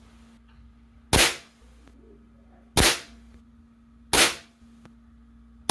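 Crosman 2240 CO2-powered air carbine firing .22 pellets in a steady string: three sharp shots about a second and a half apart, and a fourth at the very end.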